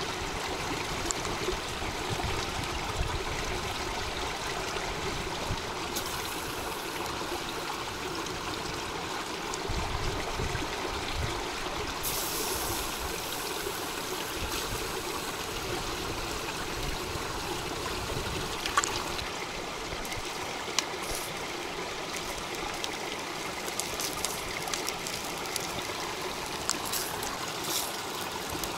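Small creek running over rocks, a steady rush of water, with a few sharp clicks scattered through it, the loudest about two-thirds of the way in.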